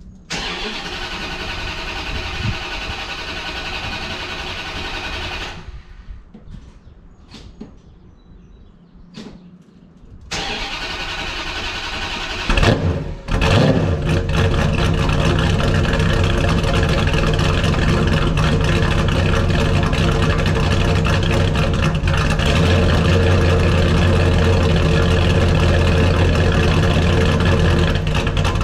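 1970 Dodge Challenger's 440 V8 being cold-started: the starter cranks it over for several seconds, stops, cranks again, and the engine fires about twelve seconds in with two quick revs. It then settles into a steady idle through the dual exhaust.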